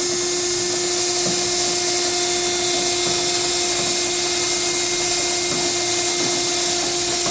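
Cardboard baler's hydraulic pump motor running steadily: an even hiss with a constant hum tone while the press is in its cycle.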